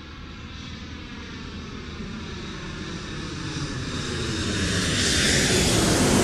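Small drone's propellers whirring in flight, a steady buzzing hum that grows steadily louder.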